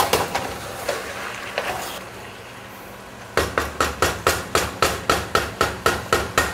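A few scattered knocks, then a quick, even run of about a dozen sharp knocks, some four a second, over the last three seconds.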